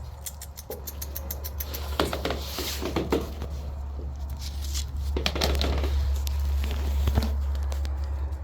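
Shiba Inu puppies scuffling at play: paws pattering and clicking on the floor in two busy flurries, over a steady low hum.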